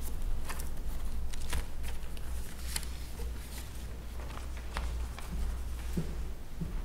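Paper rustling as sheets are handled, with scattered light clicks and knocks, over a steady low hum.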